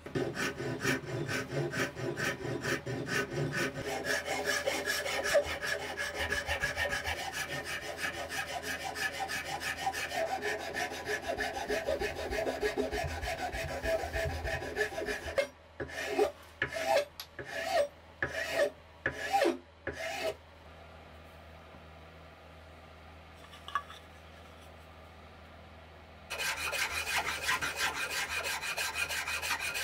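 Hand rasp and file scraping across cherry wood to shape a curved cutout. Fast, continuous strokes give way at about the middle to about eight slower, separate strokes. After a pause of several seconds, rapid filing starts again near the end.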